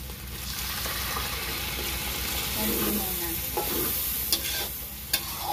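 Pork innards and pig's blood sizzling in a hot metal wok while being stirred with a metal spatula, the sizzle swelling about half a second in. Near the end come a few sharp clicks of the spatula against the pan.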